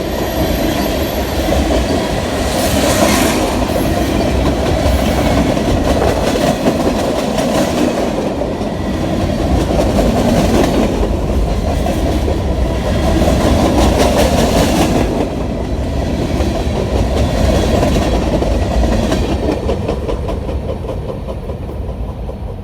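Freight train cars rolling past with a steady rumble, their wheels clacking over the rail joints; the sound grows quieter near the end.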